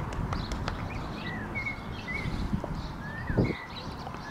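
Outdoor background noise with a low rumble and several short bird chirps, and a single dull thump a little past the middle.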